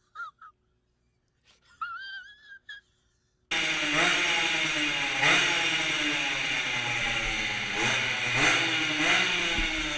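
Near silence for the first three seconds apart from a faint wavering whine, then about three and a half seconds in a two-stroke moped engine cuts in loud, its revs repeatedly climbing and easing off as it is ridden through a corrugated metal culvert.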